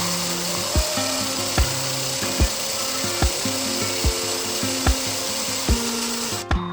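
Background music with a slow, steady beat, a little faster than one beat a second, over the steady rasping hiss of a power tool working metal. The tool noise cuts out briefly near the end while the beat carries on.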